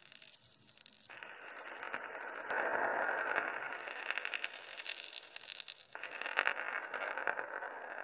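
Opening sound design of a brand film: a hissing, crackling noise fades in about a second in, grows louder at about two and a half seconds and keeps surging and flickering.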